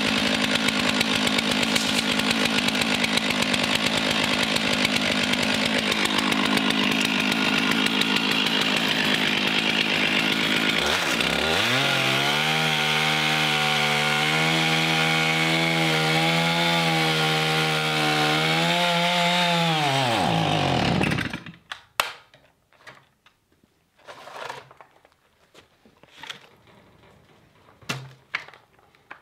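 Stihl MS 461 two-stroke chainsaw running at full throttle. About eleven seconds in it drops to a low, wavering idle, then sags and dies about 21 seconds in, out of fuel. A few scattered clicks and knocks follow.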